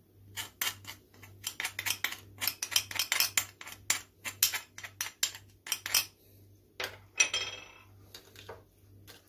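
Metal spoon clinking and scraping against porcelain as ground spices are tapped off a small dish into a bowl, in rapid clinks for about six seconds. Near the end come a longer scrape and a few lighter clicks as the spice paste is stirred.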